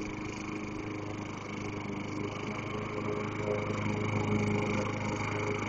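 Small gasoline push lawn mower engine running steadily, getting louder as the mower comes closer.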